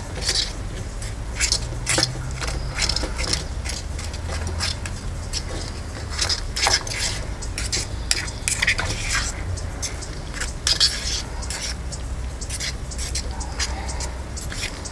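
A spoon scraping and clinking irregularly against a small cooking pot as scrambled eggs and bacon are stirred, over a steady low rumble.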